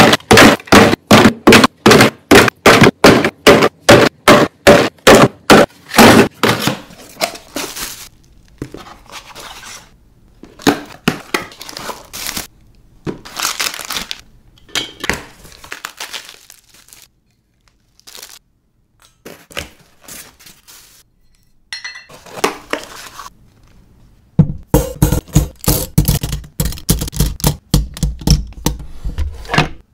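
Household items being handled and put away: a fast, even run of sharp knocks, several a second, for about six seconds, then scattered clicks, taps and rustling, and another dense run of knocks with heavier thuds near the end.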